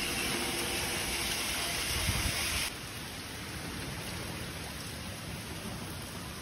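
Water gushing and running out of pool pump plumbing onto wet ground, a steady hissing rush. About two and a half seconds in the hissier part drops away suddenly, leaving a quieter, steady water rush.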